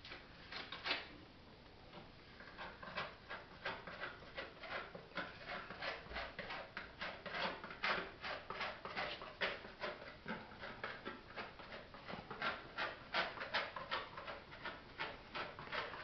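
Hand trowel scraping and smoothing structural epoxy over a carbon/Kevlar grid strap on a concrete block wall: a faint run of short scraping strokes, a few a second.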